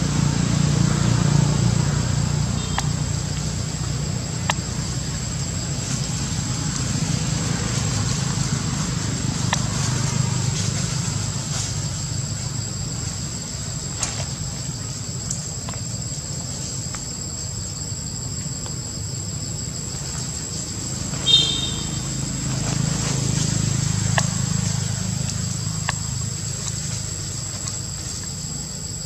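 Forest ambience: a steady high-pitched insect drone over a low rumble, with faint scattered clicks and one brief high-pitched call about two thirds of the way through.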